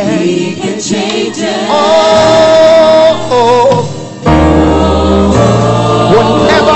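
Live gospel worship singing: a male lead singer with backing vocalists, holding a long note midway. Just after the halfway point the band's accompaniment comes in strongly with a deep bass.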